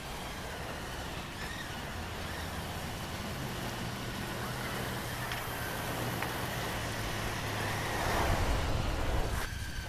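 Soft rubber squeegee dragged across asphalt, spreading wet acrylic resurfacer with a steady scraping swish that grows louder about eight seconds in as it comes close. A steady low hum runs underneath.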